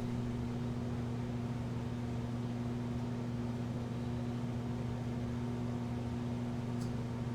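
Steady low electrical hum of a mains-powered motor, unchanging throughout, with a faint tick about seven seconds in.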